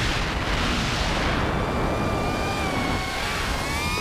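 A 5-inch FPV quadcopter's motors whining under heavy wind rush on the onboard camera's microphone. The whine climbs in pitch near the end as the throttle comes up.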